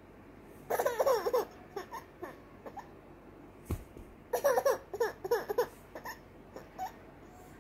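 A baby laughing in two bursts of quick, high giggles, about a second in and again past four seconds, with short catches of breath between.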